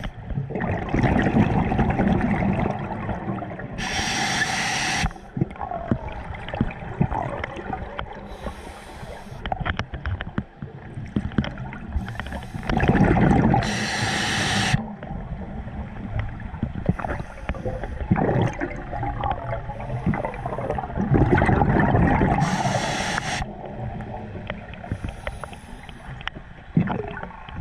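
Scuba diver breathing underwater: a hiss of air through the regulator on each breath in and a rush of exhaled bubbles on each breath out, a few breaths several seconds apart, with small clicks in between.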